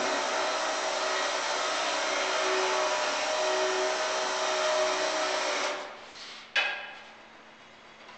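Battery-powered electric motor on an asphalt heater trailer, running steadily with a whirr and a steady whine, then shutting off about six seconds in. A single sharp click or clunk follows about half a second later. It runs strongly off batteries left uncharged for about two months, showing they still hold charge.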